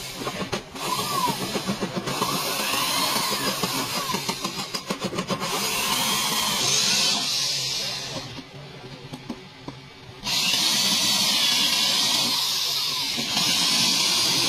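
Corded electric drill boring through a car's sheet-metal body panel. It runs loud and steady, eases off for about two seconds around the middle, then bores on again.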